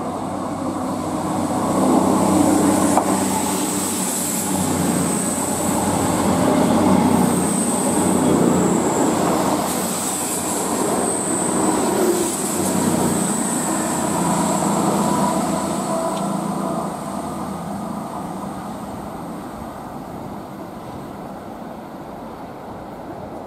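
CrossCountry Voyager diesel multiple unit passing through, its underfloor diesel engines and wheels on the rails. The sound builds over the first couple of seconds, stays loud in swells as the cars go by, then fades away over the last several seconds. A thin high whine rides over it while the cars pass.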